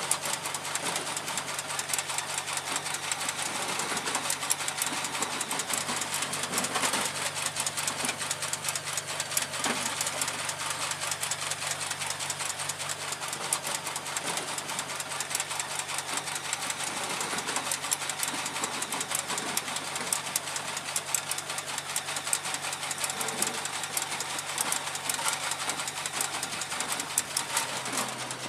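Metal clinking and rattling of a linked ammunition belt being handled and fed by hand into a deck gun's feeder: many small clicks, over a steady low machinery hum that shifts slightly near the end.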